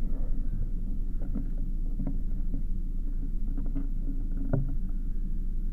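Steady low rumble, with a few faint taps.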